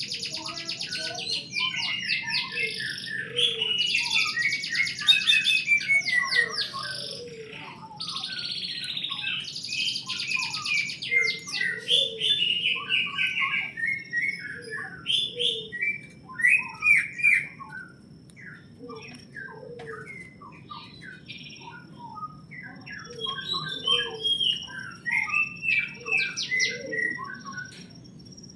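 A flock of small birds chirping and calling over one another, with many short chirps and rapid falling trills. The calls are dense and loud for about the first sixteen seconds, then thin out to scattered chirps.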